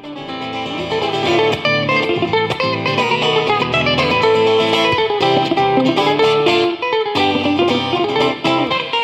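Music played on plucked string instruments, a lively run of quick notes over a low accompaniment.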